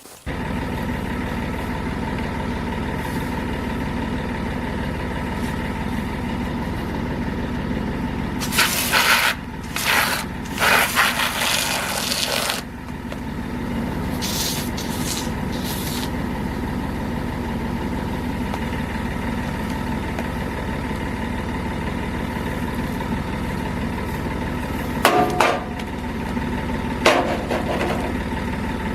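Ford F800 dump truck's diesel engine idling steadily. Several brief, louder rushing noises break in about 9 to 12 seconds in and again twice near 25 and 27 seconds in.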